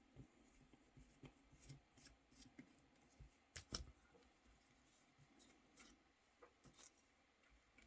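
Faint, scattered clicks and light scraping of small plastic phone parts and tools being handled while a Nokia 3310 is taken apart, with one sharper double click a little under four seconds in.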